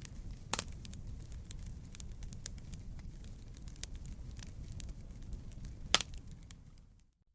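Wood fire crackling in a fireplace: a low steady rumble of flames with scattered small crackles and two louder pops, about half a second in and about six seconds in. The sound fades out briefly near the end.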